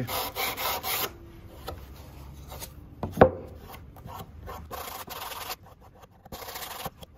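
Sandpaper on a cork sanding block rubbed back and forth along the edge of a windsurf fin, shaping the leading-edge bevel over the repair. About four quick strokes in the first second, then quieter strokes spaced further apart. A single sharp knock about three seconds in is the loudest sound.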